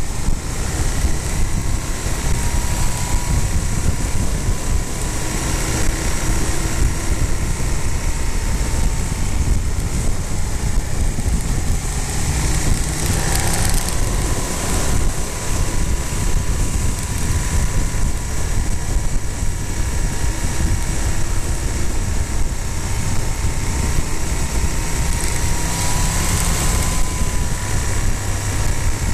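Motorcycle engine running steadily at a cruise of about 60–70 km/h, with wind rushing over the microphone.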